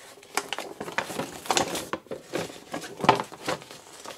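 Structure deck packaging and playmat being handled by hand: an irregular run of rustles and crackles, with a few sharper crackles in the middle and later part.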